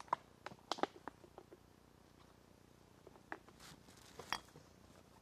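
Faint handling noises from bottles and gear: a scatter of light clicks and knocks, most in the first second and a half and a few more near the end, with a brief rustle.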